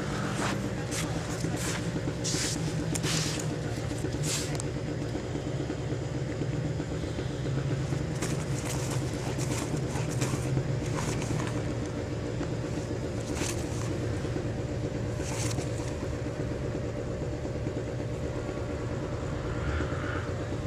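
An engine running steadily with a low, even hum, with short crunching or hissing noises now and then.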